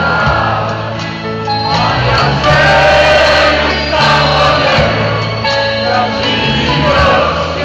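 Live concert music: a band with drums and a steady bass line under male voices singing together, recorded from within the audience.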